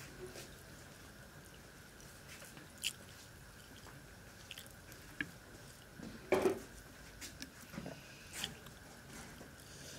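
Close-up eating sounds: fingers squishing and mixing chira pulao (flattened-rice pulao) and boal fish against a clay plate, with chewing and scattered small clicks. One louder, longer noise comes about six seconds in.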